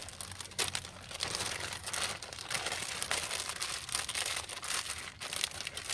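Clear plastic zip-top bag crinkling as it is handled and folded: a steady run of small crackles.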